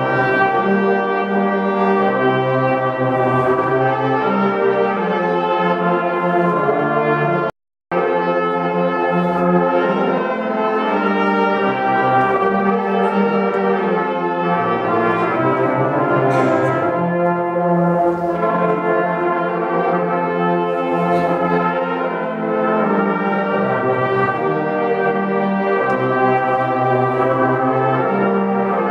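Small brass ensemble with trumpets playing a slow piece in held chords. The sound cuts out for a split second about eight seconds in.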